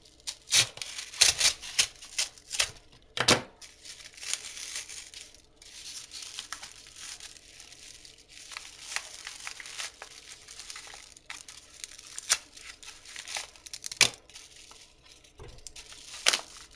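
A paper mailing envelope being torn open and handled: several sharp ripping sounds in the first few seconds, then steady crinkling and rustling of the paper with a few sharp cracks near the end.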